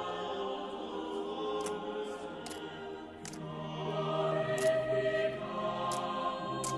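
Background music with a choir-like sound, slow sustained notes that change pitch every second or two. About half a dozen short, sharp clicks sound over it at irregular intervals.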